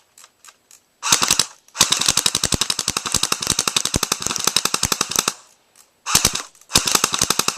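Airsoft guns firing on full auto: a short burst about a second in, a long burst of rapid shots lasting about three and a half seconds, then another short burst and a second long burst near the end.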